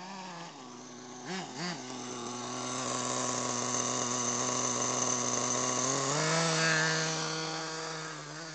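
Small two-stroke engine of a petrol-powered RC car, blipped a few times, then held at high revs while it grows louder; the pitch steps up about six seconds in and the sound eases off near the end.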